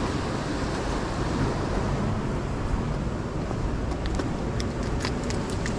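Steady rumble of ocean surf and wind on the microphone, with a few small clicks and taps in the last second and a half.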